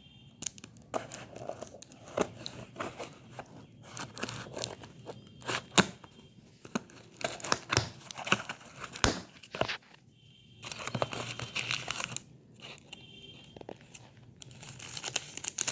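Cardboard shipping box being cut with scissors and torn open by hand, a dense run of irregular crackles, rips and crinkles as packing tape, cardboard flaps and paper are pulled apart, with a short lull about two-thirds of the way through.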